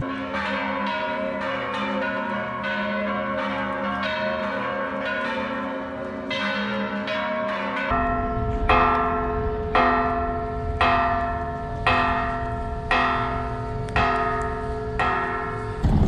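Church bells ringing. First comes a quick, busy peal of several bells at different pitches. About halfway through it changes to a bell tolling slowly and evenly, about one strike a second.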